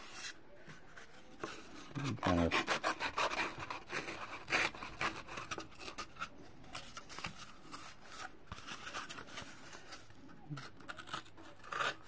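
Small blade of a Victorinox Classic-style mini pocket knife sawing into a cardboard tube: a quick run of scraping strokes about two seconds in, then slower, sparser cuts.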